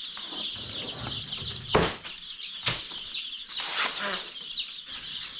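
A brood of Cornish Cross and Rhode Island Red chicks peeping continuously, many high, short peeps overlapping. Three brief rustling thumps cut through about two, three and four seconds in, the first the loudest.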